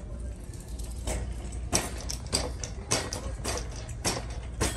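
Footsteps on a hard store floor, sharp regular steps about one and a half to two a second, starting about a second in, over a low steady hum.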